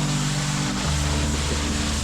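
Background music with a steady bass line that changes note about a second in.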